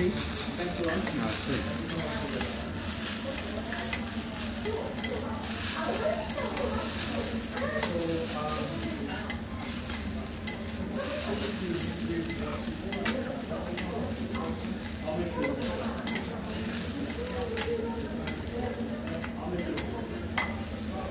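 Food sizzling on a teppanyaki steel griddle, with frequent metal spatula clicks and scrapes against the plate as the chef turns and stirs it.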